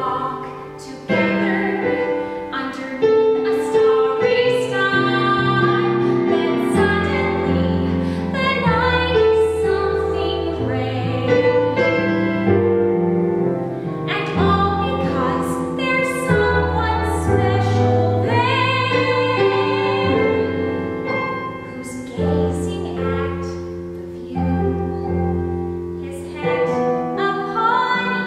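A woman singing a song over instrumental accompaniment, with sustained low notes beneath the melody.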